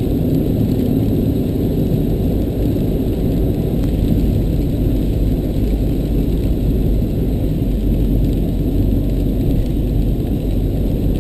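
Steady low road and engine noise inside a car's cabin while driving on the highway.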